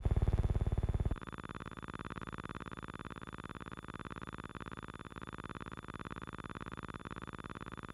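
A steady buzz with a fast, even pulse. It starts suddenly and loud, then drops to a lower, unchanging level after about a second.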